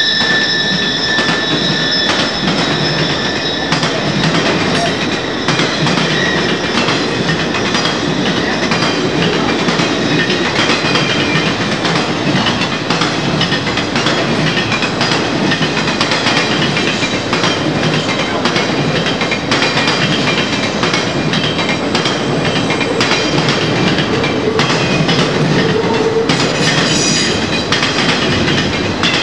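Conrail TV-61 intermodal train, highway trailers on flatcars, rolling steadily past: a constant rumble with the clatter of many wheels clicking over the rail. A high wheel squeal fades out in the first few seconds.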